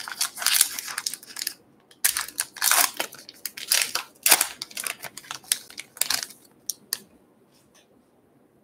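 A 2020 Topps Gypsy Queen baseball card pack wrapper being torn open along its crimped seal and pulled apart, a run of sharp rips and crinkles that stops about seven seconds in.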